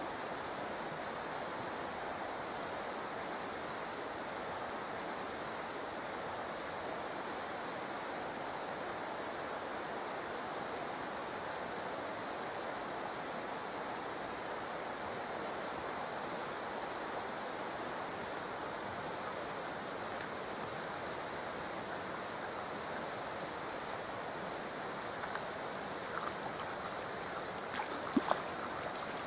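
Steady rush of flowing water. A few light knocks and clicks near the end.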